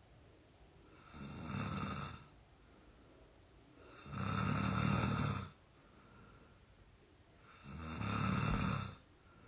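A sleeping person snoring: three snores about three seconds apart, each lasting a little over a second, with quieter breathing between them.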